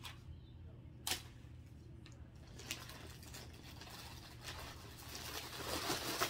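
Plastic mailer bag and packaging crinkling and rustling as hands dig through it, getting busier over the last few seconds. There is one sharp tap about a second in, over a faint steady low hum.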